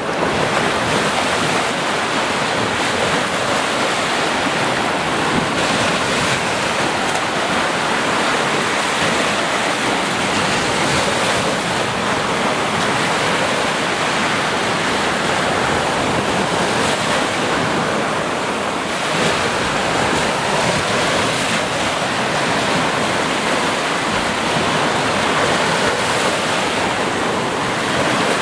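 Sea surf washing onto a beach in a steady, continuous rush, with wind buffeting the microphone.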